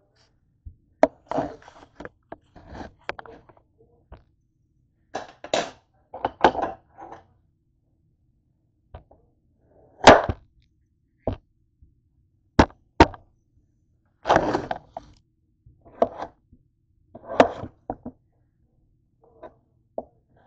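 Kitchen knife cutting boiled potatoes: irregular sharp knocks of the blade meeting the surface below, mixed with short scraping sounds, the loudest about halfway through.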